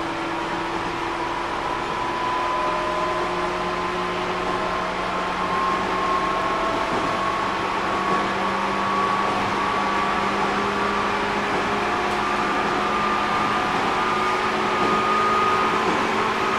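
Running sound inside a JR 205 series 600 subseries electric train: the traction motor and gear whine climbs slowly in pitch as the train gathers speed, over a steady rumble of wheels on rail.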